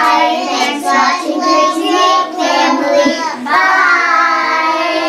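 A group of children singing out together in unison in long, drawn-out notes, the last one held for about two seconds.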